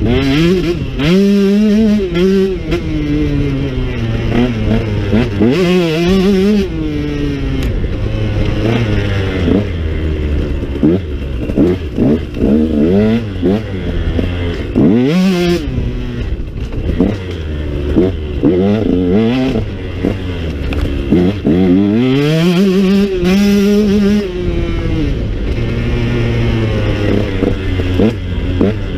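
Off-road motorcycle engine revving hard while being ridden, its pitch climbing and dropping back again and again.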